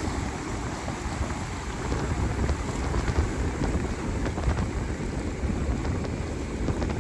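Small ocean waves washing and swirling around boulders on a rocky shore, a steady rushing surf noise, with wind rumbling on the microphone.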